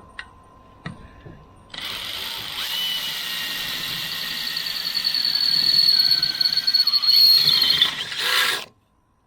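An electric power tool starts about two seconds in and runs for about seven seconds with a high, whining tone, cutting metal. It stops suddenly near the end.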